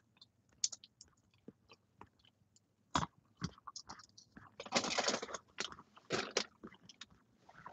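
Faint scattered clicks and ticks, with a short rustle about five seconds in, as a person shifts and leans over in a car seat.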